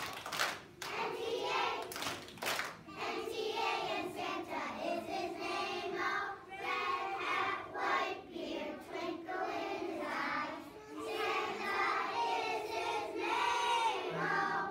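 Young children's choir singing a song together in unison. A few sharp claps sound in the first three seconds.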